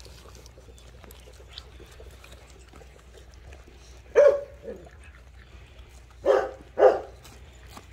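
Rottweiler puppies barking: a single short bark about four seconds in, then two more in quick succession near the end.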